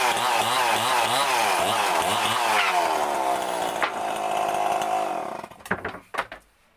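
Chainsaw cutting through mahogany, its pitch rising and falling about twice a second under load. It winds down about three seconds in and cuts off near the end, followed by a few sharp knocks.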